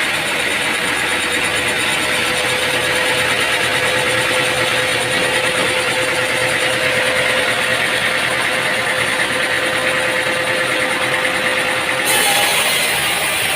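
Heavy machinery running steadily with a dense mechanical noise and a constant tone. The sound changes abruptly near the end, as at a cut to another machine.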